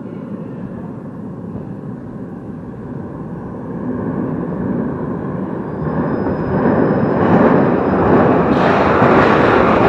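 London Underground Northern line train approaching through the tunnel: a rumble and rush of air that grow steadily louder, with a faint thin whine partway through and a hissing rush building in the last second or so as it nears the platform.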